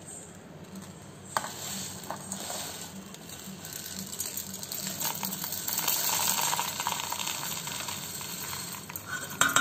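Dry whole spices and lentils (cumin, coriander seeds, black peppercorns, toor dal, garlic cloves, a dried red chilli) poured from a steel plate into a stainless-steel mixer-grinder jar: a rattling patter of small hard seeds on metal, heaviest about halfway through. A couple of light knocks come first.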